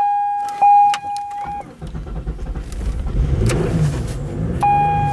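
A 2002 Pontiac Bonneville's dashboard warning chime pulsing about once a second, then stopping as the 3.8 L V6 catches and runs with a rough, uneven rumble. The chime starts again near the end. The car is due a head gasket replacement and was popping and banging.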